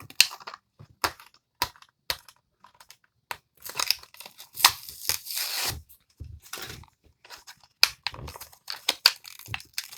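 Hot Wheels card-and-plastic blister packaging being torn open by hand: scattered sharp clicks and crinkles, with longer tearing rips about four to six seconds in.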